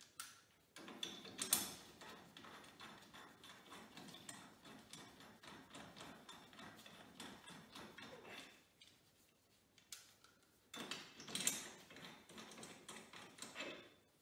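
Hand ratchet clicking rapidly as it runs down the nuts fastening a wheel spacer to an ATV hub, in two spells with a short pause between.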